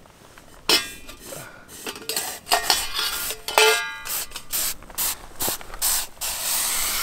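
Metal camp pot and its lid clanking and scraping over the campfire stones as the lid comes off a pot of boiling water, two of the knocks ringing with a metallic tone. A steady hiss of steam and boiling water takes over about six seconds in.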